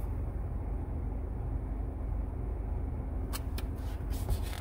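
Steady low rumble inside a car's cabin. A little over three seconds in, a run of short crisp rustles and clicks as a picture book's page is turned.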